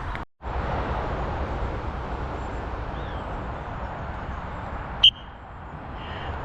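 Steady rushing wind noise on an outdoor camera microphone. The sound drops out for a moment just after the start. About five seconds in there is a brief, sharp, high-pitched tone.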